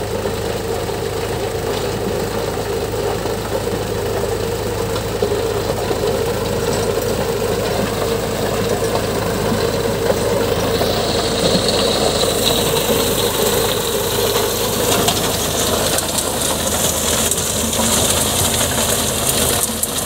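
Indo Farm tractor's diesel engine running steadily under load while its rear-mounted rotary tiller churns dry soil. About eleven seconds in, a higher hissing noise joins the engine and stays to the end.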